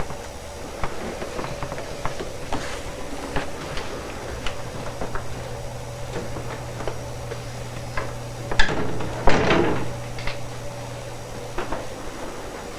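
Scattered light knocks and handling noises over a low steady hum, with a louder clatter lasting about a second and a half about nine seconds in.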